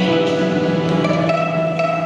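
Instrumental introduction of a song's backing track: long held string notes with plucked notes entering about a second in.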